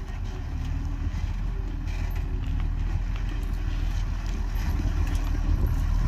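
Heavy diesel engine of earthmoving machinery (dump truck or bulldozer) running steadily under load, a low throbbing drone.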